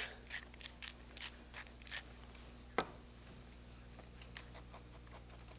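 Pepper mill grinding over the casserole: a quick run of short, crunchy clicks for about two seconds, then a single sharp knock a little before the middle, as of the mill or a utensil set down.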